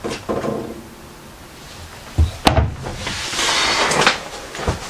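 Wooden kitchen cupboard door being handled, with a sharp knock about halfway through, then rustling and shuffling.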